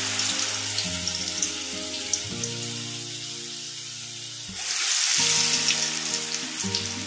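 Urad dal vadas (minapa garelu) deep-frying in hot oil in a kadai, a steady crackling sizzle. The sizzle swells about halfway through as a second vada of batter goes into the oil.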